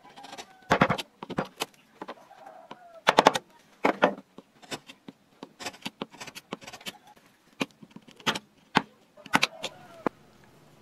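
Half-round wood-carving gouge pushed by hand into a wooden relief panel: a series of sharp, crisp cuts and cracks as chips are sliced and snap off, in short irregular clusters.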